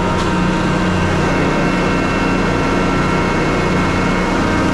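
Concrete mixer truck's diesel engine running steadily, heard up close, an even drone with several held tones.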